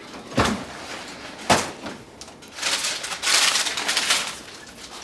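Handling noise as a cardboard case of canned beer is lifted out of a car: two short knocks about a second apart, then about two seconds of scraping and rustling.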